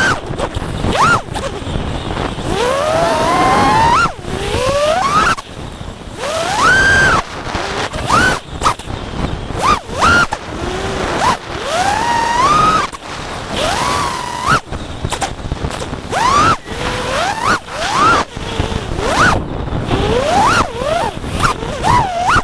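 Brushless motors and propellers of a Mamba No5 FPV quadcopter whining in flight. The pitch rises and falls over and over as the throttle is punched and eased, over a steady rush of wind and prop noise.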